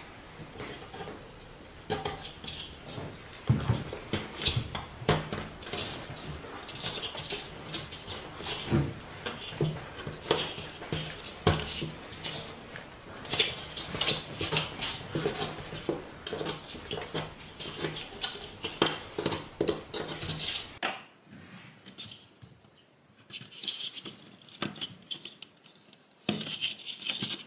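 Small wooden kumiko pieces clicking and tapping against a wooden lattice as fingers press them into place: many light, irregular clicks. They thin out to a quiet stretch about three-quarters of the way through, then a few more clicks come near the end.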